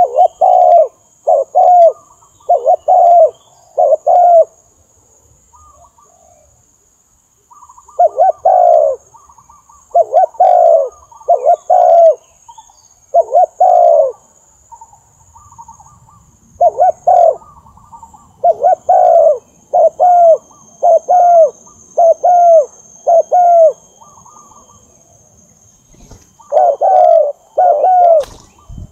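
Spotted dove cooing: phrases of two to five mellow coos each, separated by pauses of a second or more. It is the territorial call used as a lure to provoke wild doves.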